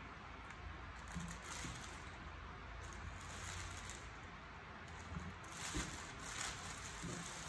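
Thin plastic bag rustling and crinkling in several short bursts as hands work in it, over a faint steady background hiss.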